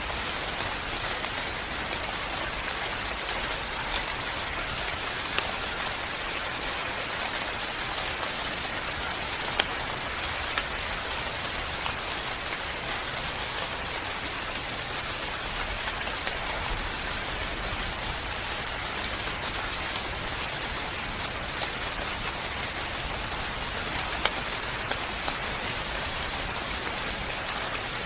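Steady rain falling on a surface, an even hiss with occasional louder individual drops spattering.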